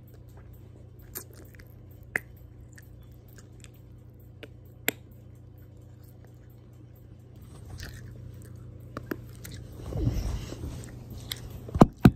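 Biting and chewing a hard candy bead pulled off a candy bracelet's elastic string: scattered sharp crunches, getting busier in the last few seconds, with a loud sharp knock just before the end.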